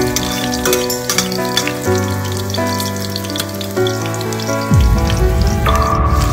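Ginger slices sizzling and crackling in hot oil in a stainless steel pot, over background music with held notes that change about once a second.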